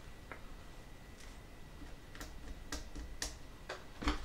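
Faint, light clicks and taps, several in a row a second or half a second apart, from tiny laser-cut wooden stair pieces being handled and set down on paper, over a faint steady high-pitched tone.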